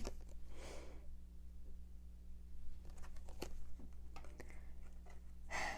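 A soft breath, then a few faint, separate taps and rustles of handling in a quiet room over a steady low hum, and another breath near the end.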